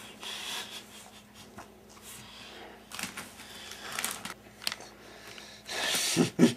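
Crinkly potato chip bag rustling and crackling as a hand reaches into it, in scattered short crackles, with a longer, louder crinkle about six seconds in. A faint steady hum runs underneath.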